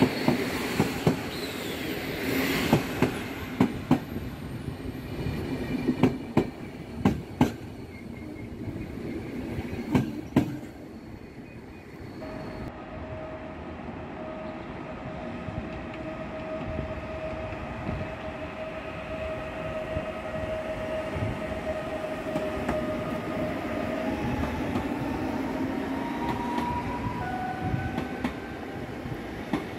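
Passenger coaches rolling past, their wheels clacking sharply and irregularly over rail joints. Then, after a cut, an electric multiple-unit train running through with a steady rumble and a held high tone from its electric drive, with rising tones near the end as it passes.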